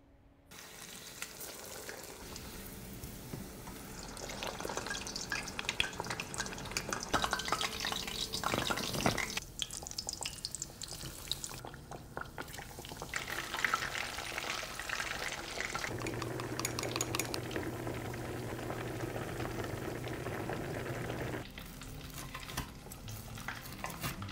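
Breaded pork cutlets deep-frying in hot oil, crackling and sizzling. A steady low hum runs under it for several seconds in the second half and cuts off suddenly.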